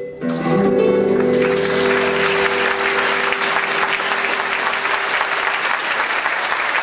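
The acoustic band's last chord is struck about half a second in and rings out over a few seconds. Audience applause swells from about a second in and carries on steadily as the chord fades.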